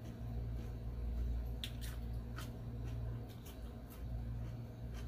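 Eating salad: scattered light clicks and crunches, about a dozen of them, over a steady low hum.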